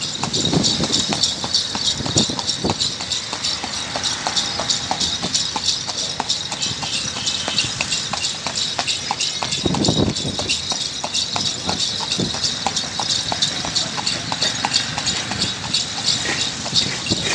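A carriage horse's hooves clip-clopping on a paved street in a steady walking rhythm.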